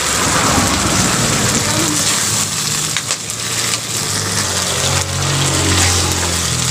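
Food sizzling and crackling in a hot wok while a metal spatula stirs and scrapes the pan. A low steady hum runs underneath and grows louder about five seconds in.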